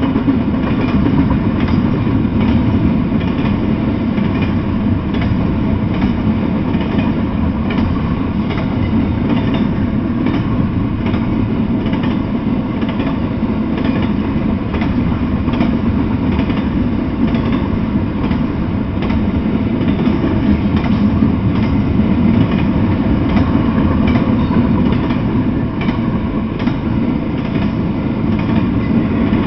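Double-stack intermodal freight train rolling past, its well cars running steadily over the rails with repeated wheel clicks at the rail joints.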